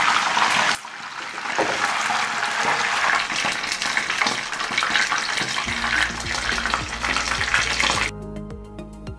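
Whole fish frying in a shallow layer of oil in a pan, a dense sizzling full of tiny pops. Music comes in over it about two thirds of the way through, and the frying cuts off near the end, leaving only the music.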